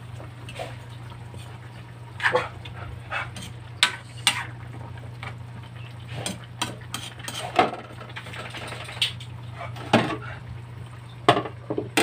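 Metal spatula stirring vegetables in a steel wok, with irregular clinks and scrapes against the pan, and a few louder knocks near the end as a metal lid is set on. A steady low hum runs underneath.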